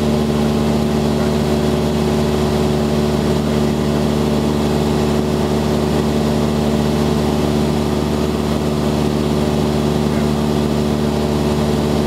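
Cessna 172's piston engine and propeller running steadily in cruise, heard inside the cabin.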